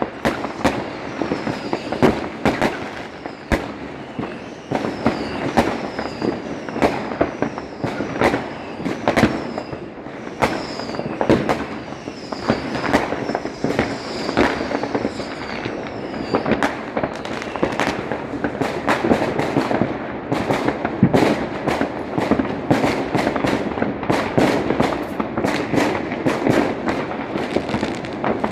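Fireworks going off: a dense, continuous run of sharp bangs and crackles, with a string of short falling whistles about once a second through the first half.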